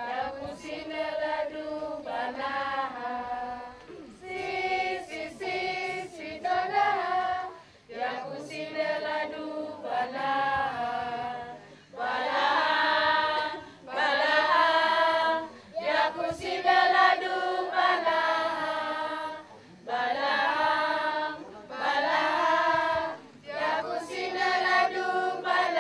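A choir singing, in phrases of one to two seconds with short breaks between them.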